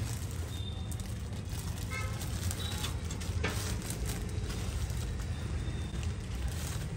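Thin plastic dry-cleaning garment covers crinkling in short rustles as they are handled, over a steady low background hum.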